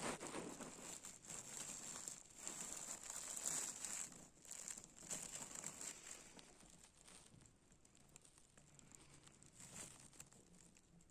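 Irregular crinkling and rustling, fairly quiet, louder for the first half and fading after that.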